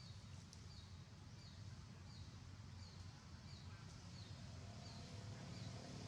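A bird calling faintly, a short falling high note repeated about every three-quarters of a second, over a steady low hum.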